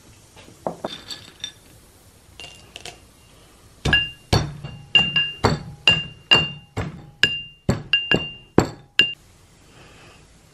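Metal pestle pounding in a mortar, crushing sugar cubes to powder: a few light clinks, then a run of about fifteen sharp blows, roughly three a second, each with a short high ring.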